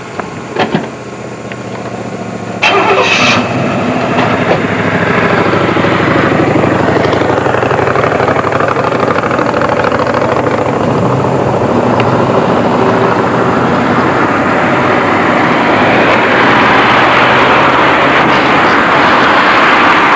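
Moving vehicle at road speed: a steady engine hum under a rush of noise. The noise jumps up sharply a little under three seconds in and builds slightly toward the end. Two sharp knocks come right at the start.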